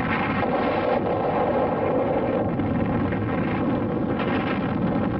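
Steady, continuous rumbling roar of an atomic bomb explosion, the Trinity test's fireball and rising mushroom cloud, as laid in as a sound effect over archival footage.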